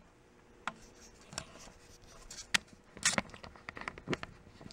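Scattered light clicks, knocks and handling noises, a few in the space of a few seconds, as the camera is taken off its mount to be hand-held.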